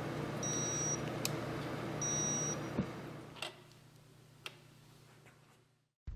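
Electronic digital torque wrench giving two short high beeps about a second and a half apart, signalling that the injector cup has reached the set torque of 35 foot-pounds. A few light metallic clicks follow, and the low hum of the shop fades out near the end.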